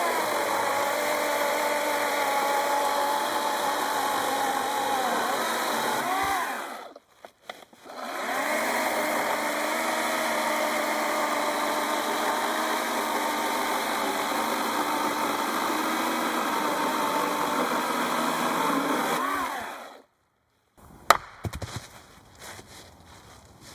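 A small motorised saw cutting wood in two long runs, the first about six seconds and the second about eleven, with the motor pitch sagging as each cut ends. A single sharp knock comes near the end.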